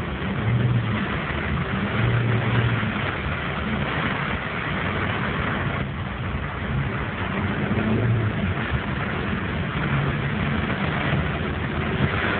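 Car cabin in heavy rain: a steady hiss of rain and wet road, over a low car engine hum that swells and eases a few times as it drives.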